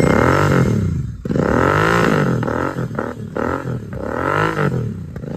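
Royal Enfield Continental GT650's 648 cc parallel-twin engine being revved through a Red Rooster Performance exhaust with the dB killer removed: three or four throttle blips, each pitch climbing and falling back.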